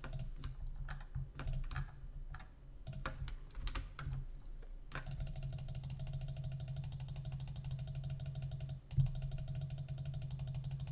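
Scattered clicks of a computer mouse and keyboard while drawing. About halfway in they give way to a steady, fast mechanical ticking with a faint hum, which breaks off briefly near the end.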